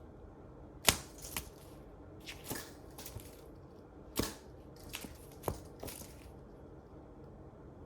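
Rustling and crunching noises: about eight short, sharp bursts spread over the first six seconds or so.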